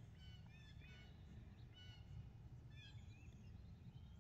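Faint birds chirping: many short high calls scattered throughout, over a low steady outdoor rumble.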